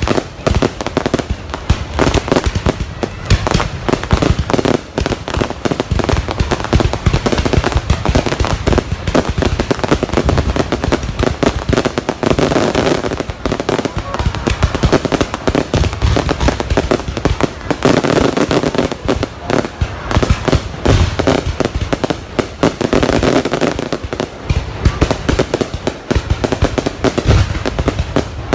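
Fireworks going off in a dense, continuous run of bangs and crackles, several a second.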